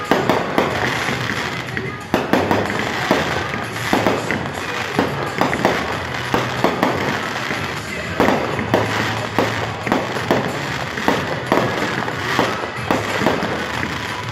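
Fireworks show: a continuous barrage of bangs and pops in quick succession, several every second.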